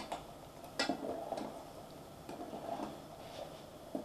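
Metal spoon stirring liquid brine in an enamel pot, clinking against the pot now and then: a few separate light clinks, the clearest about a second in.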